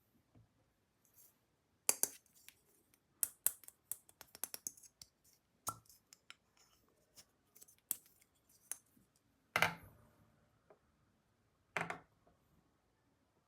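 Small hard plastic toy pieces being handled and set down: irregular sharp clicks and clacks, a quick run of them in the middle, then a short scraping rattle and one more clack near the end.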